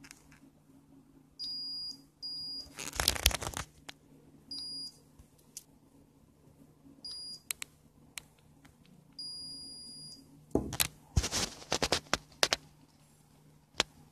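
Digital multimeter's continuity buzzer beeping five times in short, uneven bursts, each time the LJ12A3 inductive proximity sensor is held over a square of aluminium and its output switches on, detecting the metal. Knocks and rattling from the sensor being handled on the table come between the beeps and are the loudest sounds.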